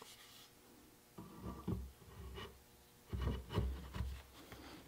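100-grit sandpaper rubbed by hand over the metal tang set into a shotgun buttstock, in two short spells of strokes, taking the metal down a few thousandths to sit flush with the wood.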